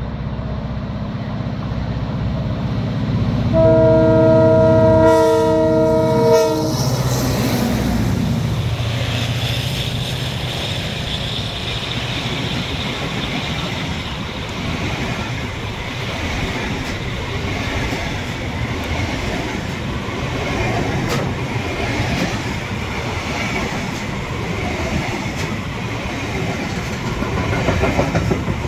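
Diesel locomotive approaching with its engine running, sounding its horn once for about three seconds. It then passes, and container wagons roll by with a steady wheel-on-rail rumble and occasional clicks over the rail joints.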